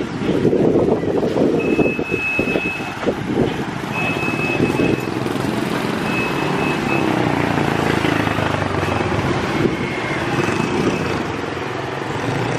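Road traffic: small motorcycles and a car passing close by, engines running steadily. A high, thin beeping tone sounds on and off about five times, each lasting about a second.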